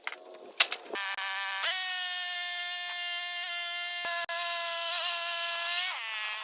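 A sharp knock, then a saw's motor starts up about a second in, steps up to full speed, runs steadily for about five seconds and winds down near the end.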